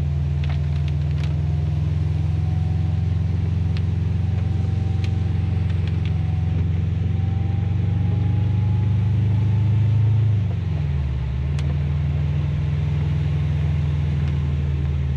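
Car engine running steadily while driving, growing slightly louder for a few seconds, then falling in pitch about ten and a half seconds in as the revs drop, before settling into a steady hum again.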